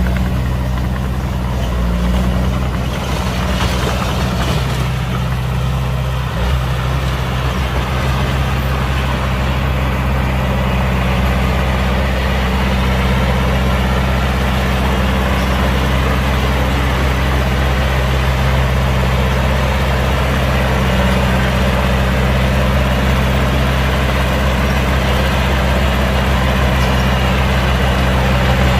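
Heavy diesel engine running steadily at low revs, a deep even drone, with a brief faint hiss about four seconds in.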